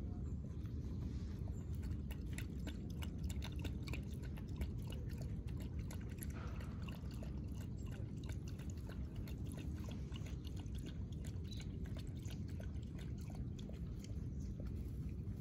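Dog lapping milk from a plastic bowl: a quick run of small wet licks and clicks, thickest in the middle, over a steady low rumble.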